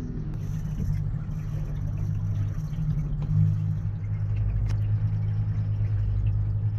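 Shanty boat's motor running steadily under way: a constant low drone.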